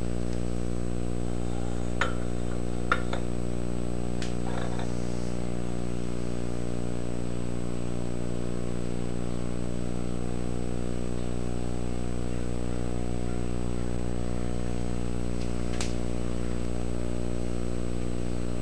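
A steady electrical hum with many even overtones runs throughout. Over it come a few light clicks of steel tools, a square and a gauge block, set against an angle plate on a surface plate: one about two seconds in, two around three seconds, one around four and a half seconds, and one more near the end.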